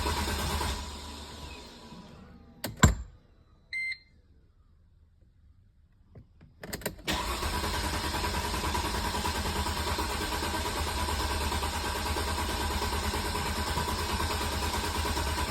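Car engine cranking on its starter without catching. It stops about a second in and fades, followed by a sharp click and a short beep. After a few seconds of near silence and a couple of clicks, the cranking starts again at about seven seconds and runs on steadily, still without the engine starting.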